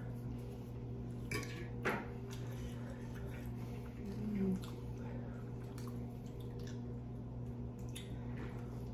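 Eating at the table: forks clicking and scraping on a glass baking dish and quiet chewing, with a few sharp clicks in the first two seconds and a brief low hum of a voice about four seconds in.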